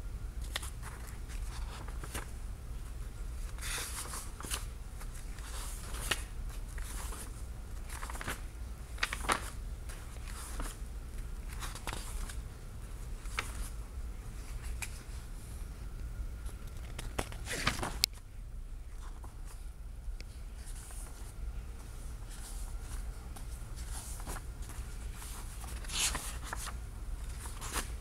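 Pages of a large book being turned and smoothed by hand: scattered papery rustles and swishes, a few louder page turns among them, over a low steady hum.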